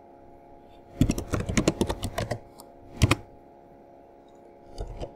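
Computer keyboard typing: a quick run of keystrokes about a second in as a terminal command is typed, then a single louder key press about three seconds in that runs it. A couple of faint keystrokes come near the end.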